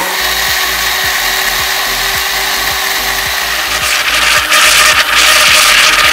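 Electric blender motor running at speed, churning liquid java plum pulp into juice in its jar. The whir grows louder and brighter about four seconds in.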